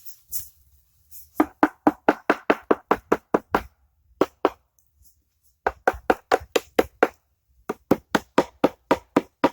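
Hammer blows on the cylinder head cover of a Chrysler 350 V8 B-block to knock the stuck cover loose. The blows come in three quick runs of about four a second, with short pauses between them.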